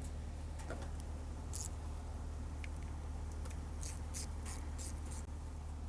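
Faint, scattered metallic clicks and ticks as a 10 mm bolt is fitted by hand and run in with a ratchet, several in quick succession near the end, over a steady low hum.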